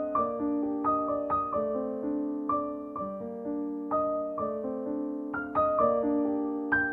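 Background piano music: a slow, gentle melody of single notes over held chords, each note struck and fading.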